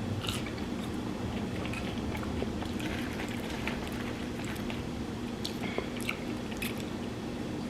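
A person chewing food close to the microphone, with many small scattered mouth clicks over a steady low hum.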